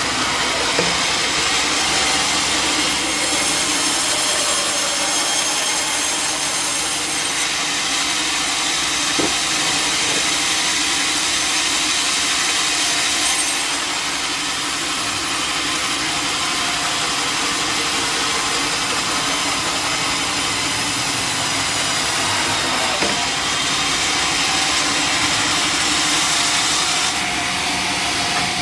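Sawmill saw cutting through a log, giving a steady loud rasping noise of the blade in the wood. The high part of the sound eases a few times and then comes back.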